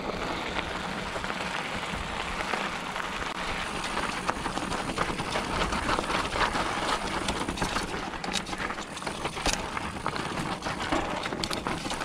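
Mountain bike riding a dirt trail: steady rush of tyre and wind noise, with the bike's chain and frame rattling in quick clicks and knocks over rough ground that come thicker from about four seconds in.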